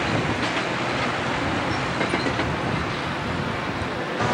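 Metra bilevel commuter cars rolling past on steel wheels, with faint clicks over the rail joints. The sound eases off a little near the end as the last car clears.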